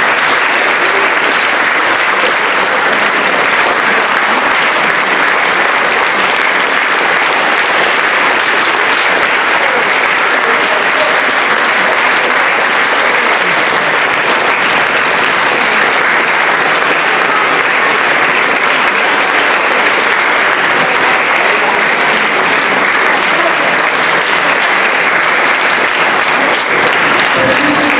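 Large concert-hall audience applauding steadily, a dense, even clapping that does not let up.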